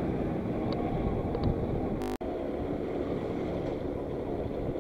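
Small 50cc two-stroke automatic scooter engine running at a steady, gentle cruise, heard with road and wind noise on the microphone. There is a brief break in the sound about two seconds in.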